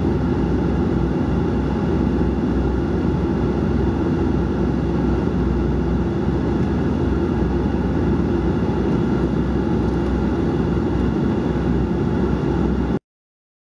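Cabin noise inside a Dash 8-400 twin-turboprop airliner in flight: a steady, loud propeller and engine drone with a strong low hum. It cuts off suddenly near the end.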